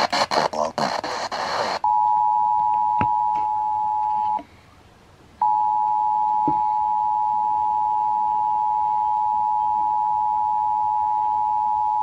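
EAS attention signal, the steady two-tone alert of about 853 and 960 Hz, played through a portable FM radio's speaker at the start of a Required Monthly Test. It starts about two seconds in, drops out for about a second, then comes back and holds steady. Before it, a couple of seconds of rough, noisy radio sound.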